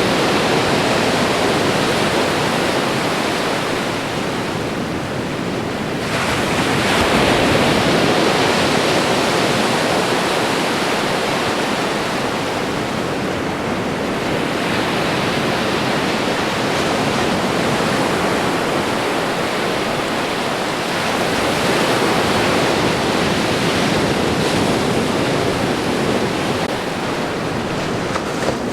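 Ocean waves washing onto the shore: a continuous surf hiss that swells and eases every several seconds, with a fresh wave surging in about six seconds in and another near the three-quarter mark.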